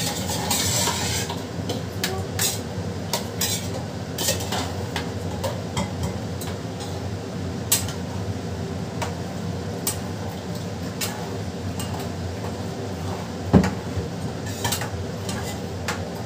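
A spoon stirring and clinking against a pan of masala gravy on the stove: irregular light clinks and scrapes, with one louder knock about 13 seconds in. A steady low hum runs underneath.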